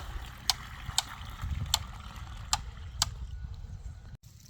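A string of six sharp, short knocks or clicks at uneven intervals over about three seconds, over a low rumble.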